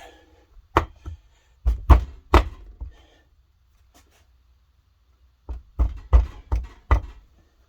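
Heavy knocks as a two-stroke jet-ski cylinder is worked down over its ringed piston and seated on the base gasket and crankcase: three hard knocks around two seconds in, then a quicker run of five or six near the end.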